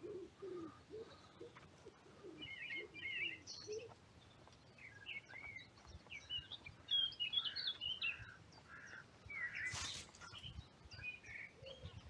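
Wild birds calling: low repeated notes in the first few seconds, then higher chirping and twittering. A brief burst of noise about ten seconds in.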